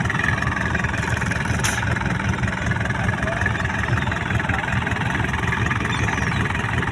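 Fishing boat's engine running steadily, with a brief click about one and a half seconds in.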